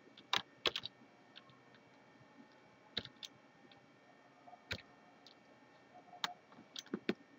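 Scattered keystrokes on a computer keyboard: single sharp clicks a second or two apart, with a quick pair about half a second in and a small cluster near the end.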